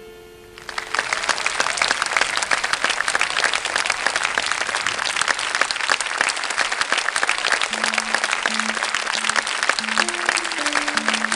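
A held musical note ends within the first second, and audience applause breaks out and keeps going. Near the end, a slow line of low musical notes starts under the clapping.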